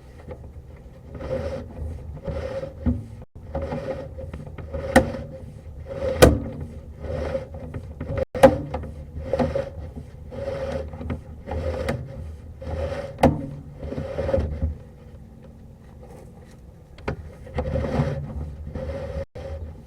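Sewer inspection camera's push cable being drawn back through an ABS cleanout by hand: a scraping rub about once a second, with a few sharp clicks and a short pause near the end.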